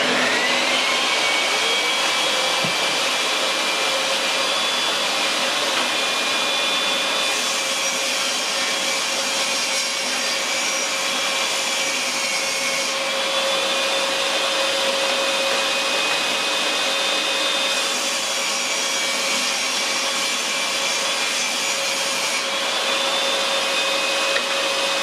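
Benchtop table saw running at full speed with a steady high whine, its motor settling to speed in the first second. Plywood is ripped into strips twice: a harsher cutting hiss joins in during each cut, and the whine dips slightly under load near the end of the first.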